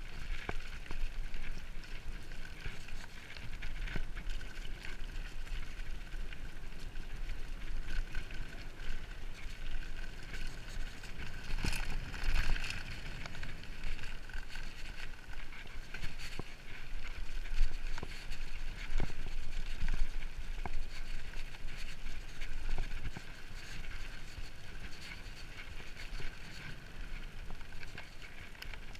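Mountain bike riding fast over a dirt and gravel track: a continuous noise of tyres on the loose surface and wind buffeting the microphone, with the bike rattling and knocking over bumps now and then.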